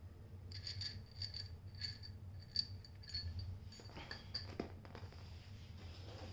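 Small metal parts from a disassembled socket ratchet clinking against each other and a hard surface as they are handled: a quick run of light, ringing clicks, thinning out after about four and a half seconds.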